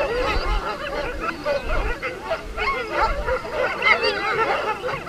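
Many harnessed sled dogs yipping, barking and howling all at once, a dense, loud chorus of overlapping calls: the excited noise of teams waiting to be let go on a run.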